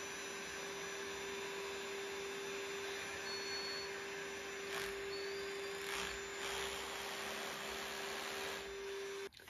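Ryobi SDS hammer drill boring a small pilot hole into a lime-plastered wall, with a vacuum dust extractor running at the bit. Steady whirring noise at an even level with a constant hum, which cuts off suddenly near the end.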